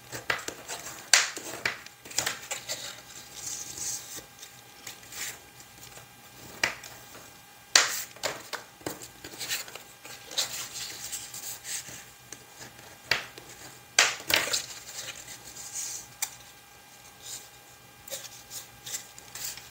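Red cardstock strips being folded and creased by hand along their score lines and burnished with a plastic bone folder: soft rubbing swishes broken by scattered sharp clicks and taps of paper and tool against the work surface.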